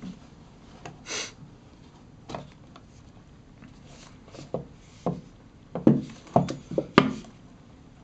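Handling noise of a wristwatch and its presentation box: a brief rustle, soft rubbing and scattered knocks, with a run of sharper knocks and clicks about six to seven seconds in.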